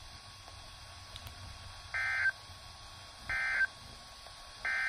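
Three short, identical bursts of digital data tones from a NOAA Weather Radio broadcast, played through a Midland weather radio's speaker. They are the SAME end-of-message codes that close an alert statement, each about a third of a second long and spaced a little over a second apart.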